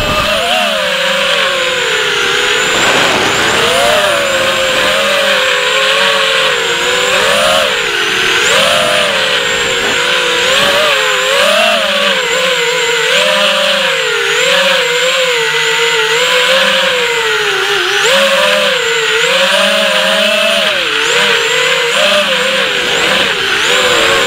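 A racing quadcopter's brushless motors and propellers (ZMR250 frame, 2204 2300KV motors, 5045 props) whine continuously, the pitch swinging up and down with every throttle change during acrobatic flying. The sound is picked up by the camera on board the drone.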